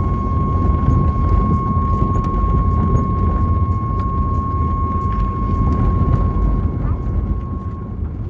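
The asphalt plant quarry's warning alarm sounds to announce an upcoming dynamite blast: one long steady tone at a single pitch that stops shortly before the end, over a heavy low rumble of wind.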